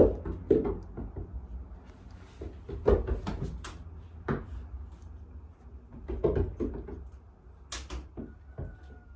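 Irregular knocks and clatters, a dozen or so sharp hits at uneven intervals, over a steady low hum.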